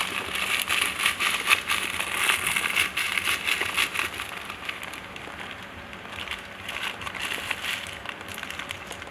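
Hamster scratching and shuffling in a glass bowl of bathing sand: a dense, crackly scratching of sand, busiest for the first four seconds and then thinning out.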